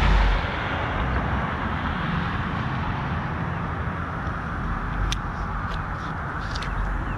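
Outdoor vehicle noise: a passing vehicle fades in the first half second, leaving a steady rumble and hiss, with a few light ticks in the second half.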